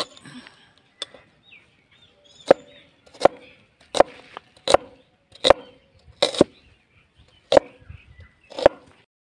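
Heavy broad-bladed knife chopping a red onion on a wooden board: about nine sharp chops, roughly one every three-quarters of a second.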